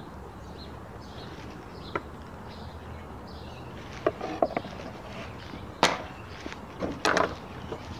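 Knife and fork cutting grilled meat on a platter: scattered knocks, taps and scrapes of the blade and cutlery against the plate and table. The loudest knock comes about six seconds in, and a short cluster of clatters follows about a second later, over a steady low background hum.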